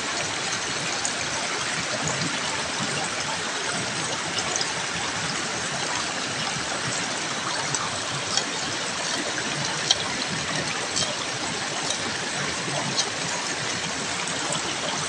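Creek water running steadily, with a few light clicks of a knife blade striking stone as onions are chopped on a rock.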